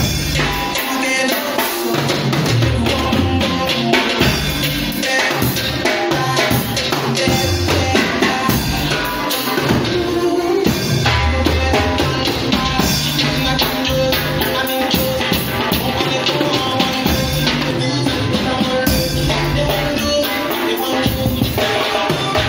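Drum kit played along with a full backing music track with bass and other instruments, the drums hitting sharply and continuously through the music.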